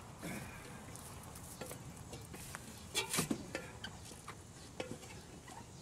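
Footsteps and knocks on an aluminium ladder as someone climbs it: a string of separate clanks and taps, the loudest cluster about three seconds in.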